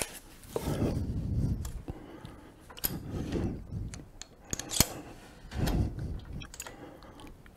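Metal parts of a wood lathe being handled: a few sharp clicks and light scrapes as a pen-turning mandrel is fitted between the headstock and the tailstock, with soft low rustling between them.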